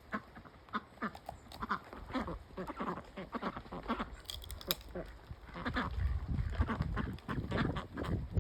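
A flock of ducks quacking: many short, overlapping calls that grow busier in the second half.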